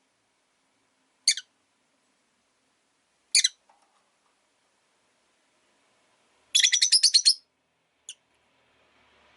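Rosy-faced lovebird giving sharp, high chirps: two single calls a couple of seconds apart, then a quick run of about nine chirps and one last faint chirp.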